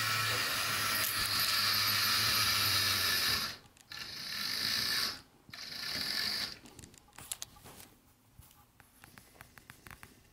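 Model Power HO-scale electric toy train running on its track, its small motor and gears whirring steadily. The sound cuts out about three and a half seconds in, starts again twice briefly, and after that only scattered light clicks are heard.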